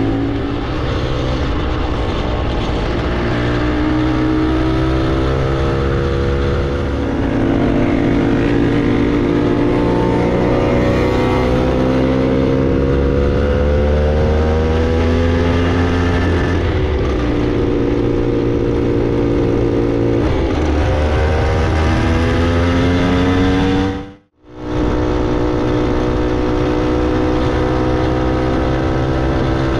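Vintage Hodaka two-stroke motorcycle engine running under way, heard from the rider's seat. Its pitch climbs repeatedly as it pulls through the gears and drops back at each shift. The sound cuts out for an instant about 24 seconds in.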